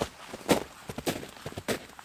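Footsteps at a steady walking pace, a step a little more than every half second.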